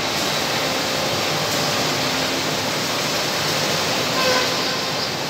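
Steady, even machinery noise of a woodworking workshop, with a faint brief whine about four seconds in.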